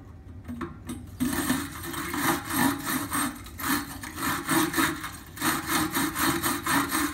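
Cut end of a copper pipe being sanded by hand, deburring it for a push-fit connector: quick rhythmic back-and-forth rubbing strokes, about three a second, starting about a second in.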